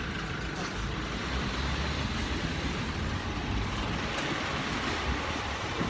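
Steady city street traffic noise, passing cars and buses making an even rumble and hiss, with wind rumbling on the phone's microphone.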